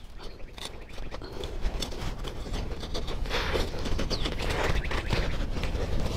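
A hand trowel and gloved hands digging a shallow trench in loose garden soil: a quick run of scrapes and gritty crunches, growing louder after the first second.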